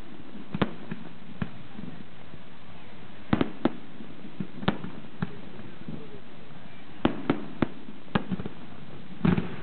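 Aerial firework shells bursting: about a dozen sharp bangs at uneven intervals, several coming in quick pairs and clusters, over a steady background noise.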